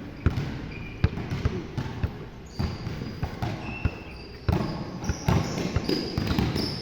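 A ball striking a court floor in sharp, irregular thuds during game play, with short high sneaker squeaks and a background murmur of voices.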